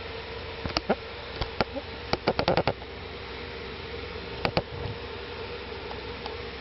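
A steady buzzing hum, with sharp clicks or taps over it: a few scattered ones, a quick run of about six around two to three seconds in, and two more a couple of seconds later.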